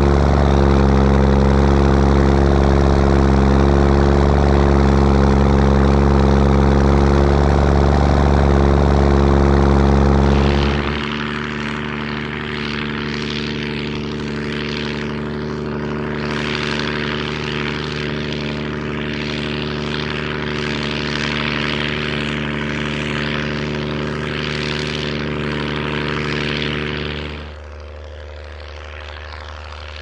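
New Holland T7060 tractor's six-cylinder diesel running steadily under load while pulling a reversible plough, loud and close for about the first 11 seconds. The engine then sounds quieter and further off with a rushing noise over it, and drops again near the end.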